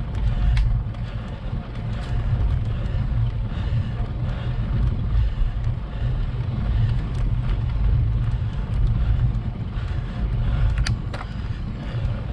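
Wind buffeting and road rumble on a bicycle-mounted camera's microphone during a slow, steep climb: an uneven low rumble with scattered light clicks and rattles.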